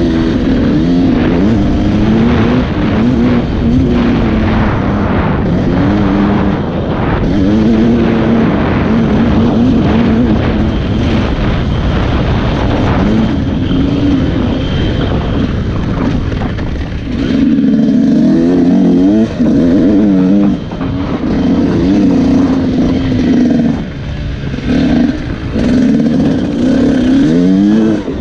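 KTM EXC 125 two-stroke dirt bike engine revving hard under load, its pitch climbing and dropping over and over through the gears and on and off the throttle, with a few brief throttle-offs in the second half.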